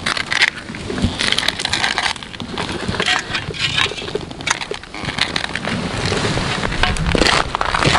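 Footsteps crunching in packed snow on river ice at a steady walking pace, roughly one step a second.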